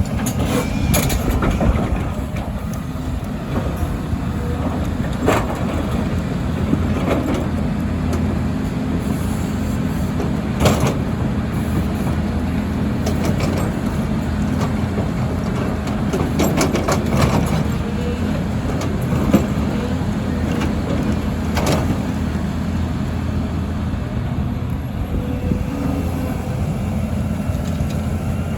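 Volvo EC300E excavator's diesel engine running steadily under hydraulic load, with occasional sharp knocks and clunks of the bucket on broken asphalt.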